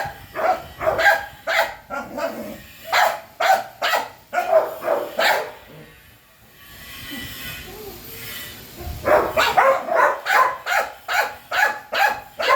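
A dog barking repeatedly in quick runs of two or three barks a second, falling quiet for about three seconds midway before barking again.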